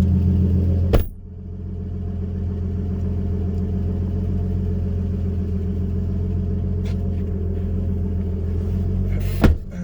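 Turbocharged 2JZ-GE inline-six of a 2003 Lexus IS300 idling steadily while being run through a heat cycle to check for oil leaks. A sharp click cuts in about a second in and again near the end.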